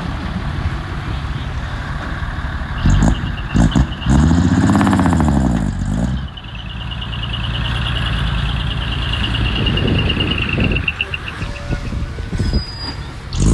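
Heavy diesel earthmoving machine engine running, revving up and back down about four seconds in, with a high, rapidly pulsing whine from about six seconds on.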